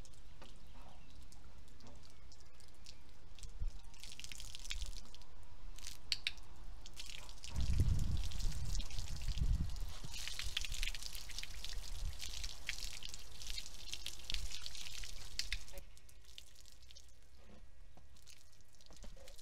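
Water from a garden hose spraying onto a horse and splattering on wet paving stones, in two spells, the longer one from about ten to fifteen seconds in. A low rumble runs underneath, stronger for a couple of seconds around eight seconds in.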